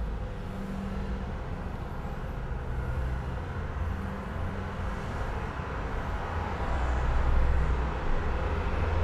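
Steady low rumble of ambient background noise, swelling slightly in the last few seconds.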